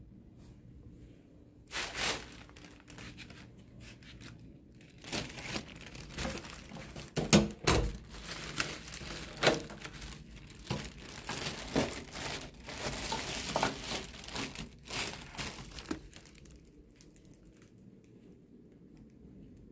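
Thin plastic rubbish bag crinkling and rustling as it is handled, in irregular bursts that are densest through the middle and die away near the end.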